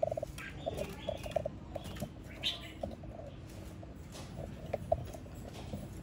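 Red-whiskered bulbuls giving short, scattered chirps and pips, with no sustained song.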